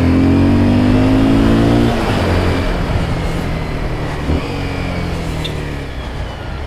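Honda motorcycle's engine pulling under throttle, its pitch rising slowly; about two seconds in the throttle closes and the engine runs on quieter under road and wind noise.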